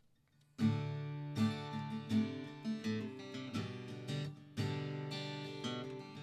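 Acoustic guitar strumming chords as the song's instrumental introduction, starting about half a second in.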